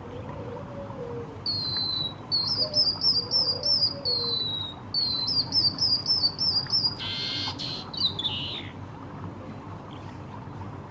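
White-headed munia (emprit kaji) singing a canary-like song: clear whistled phrases that alternate long falling notes with fast runs of repeated notes, then a short harsh call about seven seconds in and a few falling notes after it.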